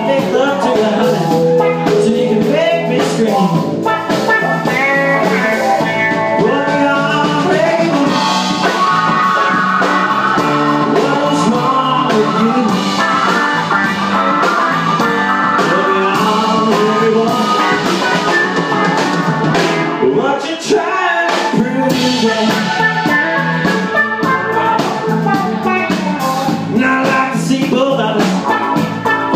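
A live rock-blues band playing: electric guitar, electric bass, keyboard and drum kit, with a singer.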